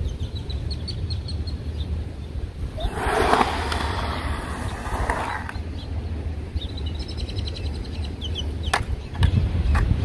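Skateboard wheels rolling over a concrete bowl, a rush of noise from about three to five and a half seconds in, over a steady wind rumble on the microphone. Small birds chirp in short series, and two sharp clacks come near the end.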